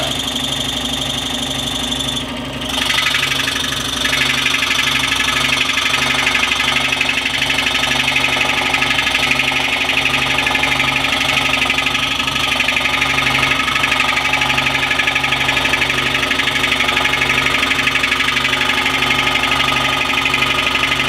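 Jet scroll saw running, its reciprocating blade cutting through a wooden board along a marked line. The sound dips briefly about two seconds in, then runs louder and steady with a fast, even pulsing from the blade stroke.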